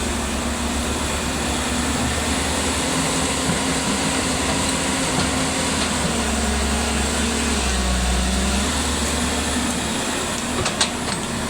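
Diesel engine of heavy road-building machinery running steadily, its pitch dipping briefly about eight seconds in as the load changes.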